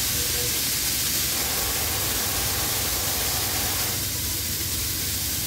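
Commercial espresso machine letting out steam: a steady, loud hiss with a low hum underneath.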